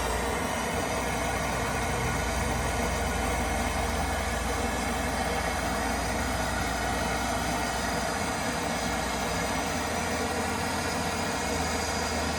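A heating tool runs with a steady, even roar as heat is put on a bent motorcycle lever to straighten it. The sound cuts off just after the end.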